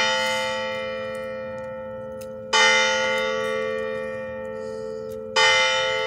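Clock-tower bell tolling. A strike rings on from just before, then two more strikes follow about three seconds apart, each ringing out and slowly fading.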